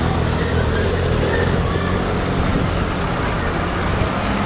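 Road traffic on a town street: a motor vehicle's engine running close by with a steady low hum, over the general noise of passing cars.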